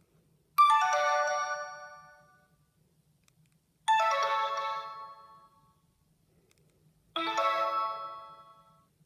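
Three short chime-like alert tones from a Sony Ericsson W595 mobile phone, one after another about three seconds apart, each a different set of notes that starts suddenly and fades away over about two seconds.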